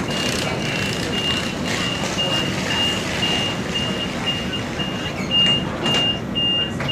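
Train door-closing warning beeper on a Sydney suburban train: a single high beep repeating about twice a second while the passenger doors slide shut, with a couple of knocks in the second half.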